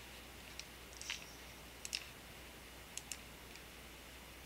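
Computer mouse button clicking, a few short clicks, some in quick pairs, as points are picked on screen.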